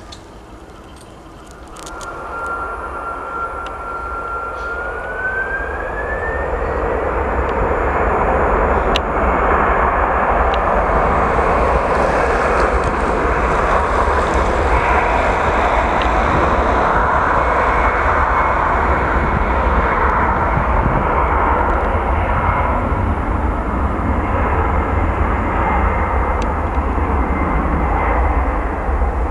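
Twin-engine jet airliner's engines spooling up to takeoff power. A single whine begins about two seconds in and rises in pitch, then the engines settle into a loud, steady roar as the aircraft rolls down the runway.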